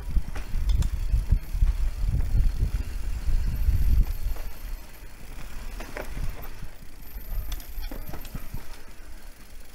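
Electric mountain bike rolling down a dirt trail: an uneven low rumble of tyres on the ground and air on the microphone, with scattered sharp clicks and rattles from the bike. It eases off about halfway through.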